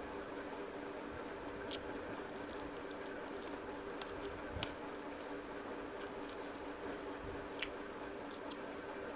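Eating by hand from a steel plate: soft squishing of rice and curry worked with the fingers, and chewing, with a few sharp clicks over a steady low hum.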